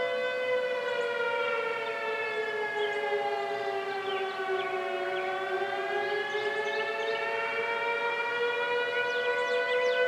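Outdoor warning sirens sounding together during a weekly storm siren test. One siren's wail slides slowly down in pitch and climbs back up, while other steady siren tones hold underneath it.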